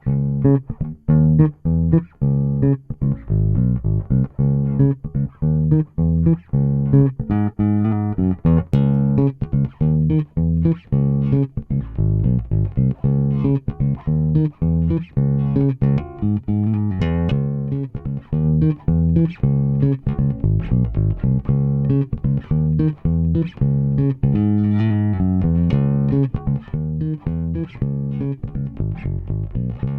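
Solo electric bass guitar, played through an Aguilar DB599 compressor pedal that is switched in and out against the bypassed signal. It plays a continuous run of plucked notes in varied playing techniques, with a few brighter, sharper-attacked passages.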